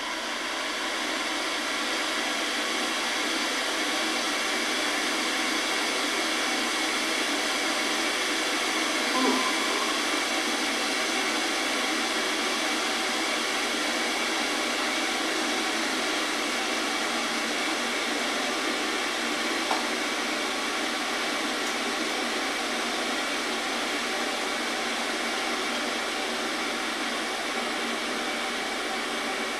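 Steady, even rushing noise with no pitch or rhythm, and a faint brief squeak about nine seconds in.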